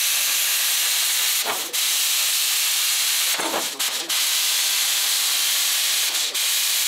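Handheld plasma cutter slicing through a sheet-steel floor panel: a loud, steady hiss of the arc and its air flow, with a few brief dips. The cut trims the floor where it hits the engine.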